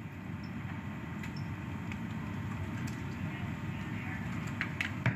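Steady low rumbling room noise of a busy control room, with a few faint clicks near the end.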